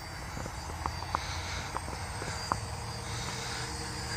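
Faint steady high buzz of a DJI Phantom FC40 quadcopter's propellers in flight, over a low rumble of wind on the microphone. Four short sharp clicks come in the first couple of seconds.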